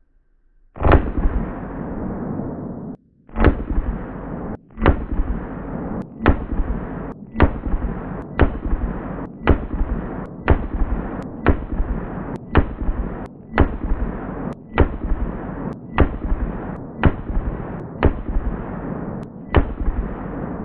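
Semi-automatic fire from a Sig Sauer M400 AR-15 rifle shooting green-tip 5.56 mm rounds: about seventeen shots, roughly one a second with a short pause after the first, each with a long echo.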